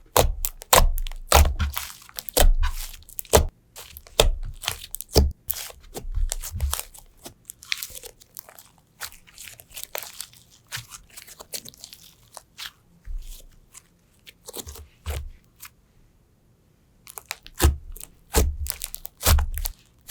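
Slime being pressed and squeezed by hand, giving a dense, irregular run of sharp crunching clicks and crackles that thins out for a few seconds in the second half.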